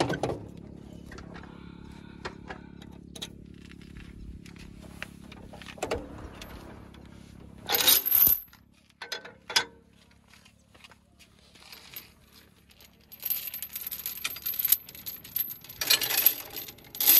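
Heavy steel chain clinking and rattling as it is handled and hooked onto a mini tractor's rear hitch, with louder bursts of clattering about halfway through and again near the end. A tractor engine idles low underneath during the first half, then fades.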